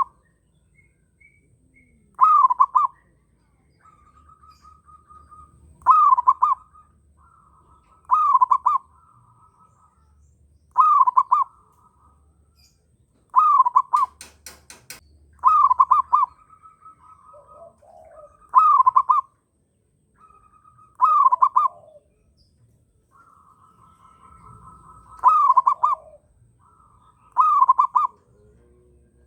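A zebra dove (perkutut) in breeding condition, repeating its loud cooing phrase every two to three seconds. Between the phrases another bird gives a fainter, steady trill.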